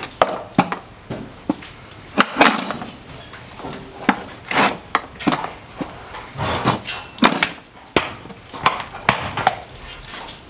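Farrier work on a horse's hoof: irregular sharp knocks, about two a second, mixed with a few longer scraping strokes.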